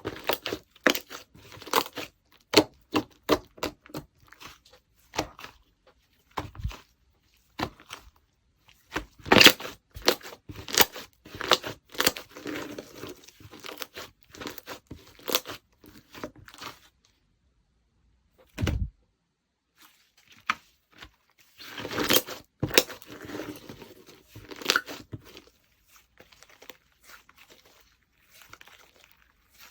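Slime being squished, stretched and poked by hand, giving a run of sharp clicks, pops and crackles. One dull thump comes in a quieter stretch past the middle.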